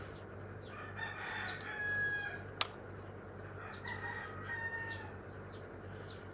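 A rooster crowing twice, about a second in and again about four seconds in, each crow ending on a held note. A single sharp click between the two crows.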